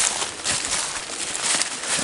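Footsteps crunching and rustling through a thick layer of fallen leaves on the forest floor, several steps in quick, uneven succession.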